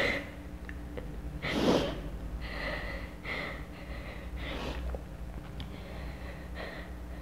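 A woman crying: a sharp gasping intake of breath at the start and another loud breath about a second and a half in, then several quieter shaky sobbing breaths.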